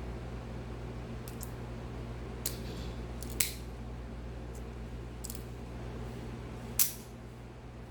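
Metal clicks from a folding multi-tool as its tools are flicked open and snapped shut: about six short, sharp clicks, with the loudest near the middle and near the end. A steady low hum runs underneath.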